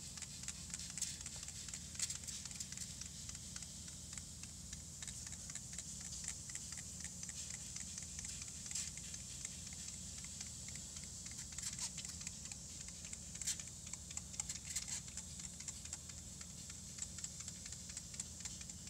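Baking soda fizzing with a dense, fine crackle as distilled vinegar is sprayed onto it: the acid–base reaction foaming. The spray bottle's trigger squirts in several sharp bursts on top.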